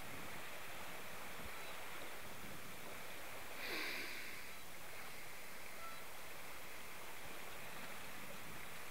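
Steady rush of water from a boat's wake churning behind the stern, with a brief, brighter surge of hiss about four seconds in.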